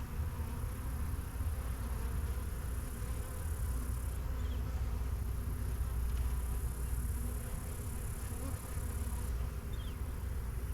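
Honeybees buzzing steadily around an open hive, over a low steady rumble.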